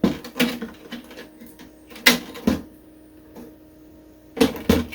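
Clicks and knocks of a TV's circuit boards and plastic parts being handled and set down on a work surface, in small clusters at the start, about two seconds in, and near the end.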